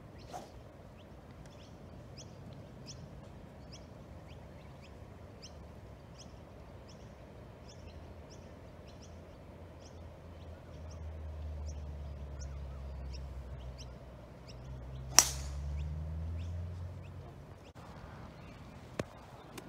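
A golf driver strikes a teed ball with one sharp, loud crack about fifteen seconds in, and a fainter click of a gap wedge striking the ball follows near the end. Through the first half a bird repeats a short high chirp about twice a second, and a low rumble swells and fades around the drive.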